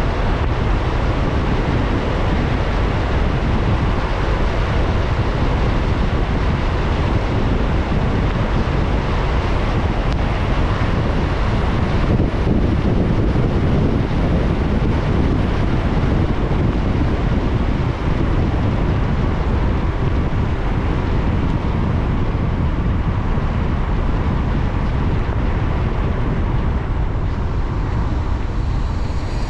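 Steady road noise of a car driving in the rain: a low rumble with the hiss of tyres on a wet road.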